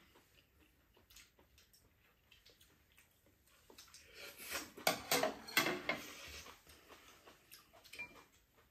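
Close-up eating noises of glass-noodle japchae being slurped and chewed, loudest about four to six seconds in, with a few light clicks of chopsticks against dishes in the quieter stretches.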